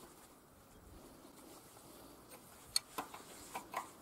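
A few light metallic clicks in the second half, about four, the sharpest near the middle: a steel combination wrench knocking against a fitting on the excavator's engine as it is worked and lifted off.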